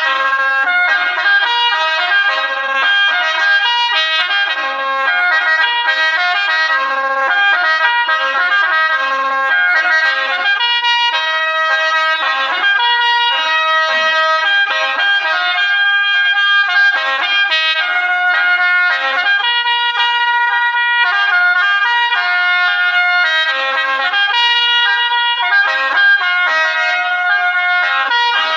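Hmong qeej, a bamboo free-reed mouth organ, played solo: several reedy notes sounding together in a continuous melody of held tones that change every second or so.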